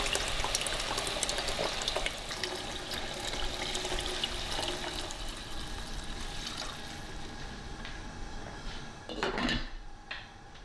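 Liquid pouring into a cooking pot, slowly tapering off, with small clinks from the pot; a short scraping sound comes near the end.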